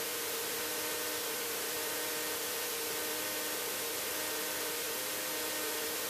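Cessna light aircraft's piston engine running at low power while the plane taxis, a steady hiss with a low wavering hum.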